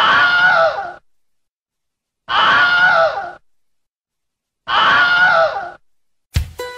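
A scream about a second long with a wavering pitch, heard three times with dead silence between: the same clip repeated. Music starts just before the end.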